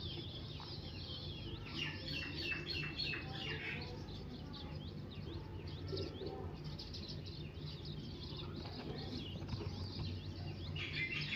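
Faint birdsong: small birds chirping in short, quick notes, with a denser run of chirps about two seconds in, over a low steady hum.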